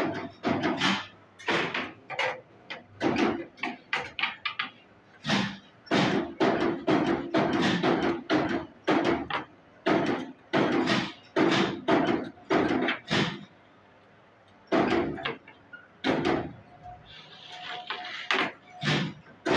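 Spot welder joining steel wire: a run of sharp metallic clacks, about one or two a second with short pauses, as the electrode arm comes down on the wire joints and the wire frame is shifted in its jig.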